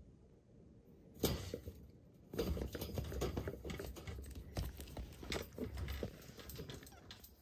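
A cat pawing and scratching at a wire pen grid: quick irregular clicks and scratches, beginning with one sharp knock about a second in and coming thick and fast from about two seconds on.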